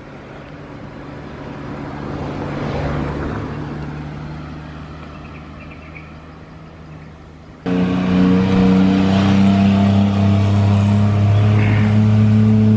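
A motor vehicle passes, its engine growing louder to a peak about three seconds in and then fading. About seven and a half seconds in there is a sudden jump to a loud engine running steadily close by.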